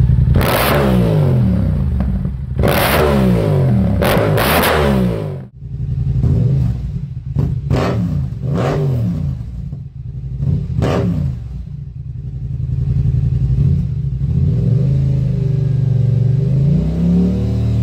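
Yamaha R7 parallel-twin engines with Yoshimura exhausts, revved in place. First one bike is blipped up and down three times. About five and a half seconds in it cuts to the second bike, which gives a run of quick short throttle blips over a steady idle and then a slower rise and fall of revs near the end.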